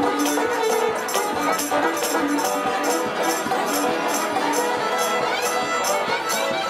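Live acoustic punk-blues band playing an instrumental passage: banjo strummed and fiddle bowed, with a high rattling percussion stroke keeping a steady beat a little over twice a second.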